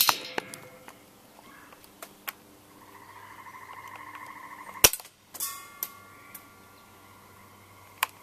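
An electric airsoft HK MP5 replica's gearbox motor whirs for about two seconds, then releases with one sharp snap as the gun fires. Light clicks from handling the gun come before and after.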